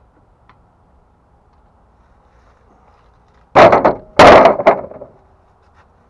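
Two heavy thumps in quick succession about three and a half seconds in, the second longer and trailing off in a short rattle.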